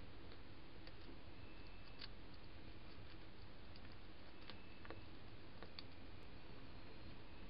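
Edible dormouse moving about at the lens, making a few faint, scattered clicks and scratches over the steady hiss of a trail camera's microphone.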